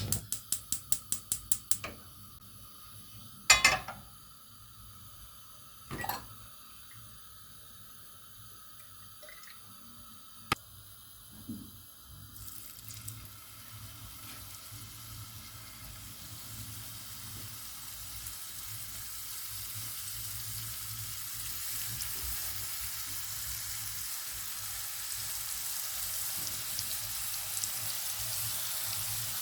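A quick run of sharp clicks, like a gas stove's igniter, and a few single knocks of pans or utensils. Then, about twelve seconds in, food starts sizzling in a hot pan, the sizzle growing steadily louder as it heats.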